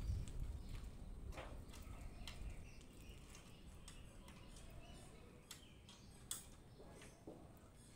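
Faint scattered metal clicks and taps from steel column formwork being loosened by hand, the sharpest about six seconds in, over a low rumble that fades during the first couple of seconds.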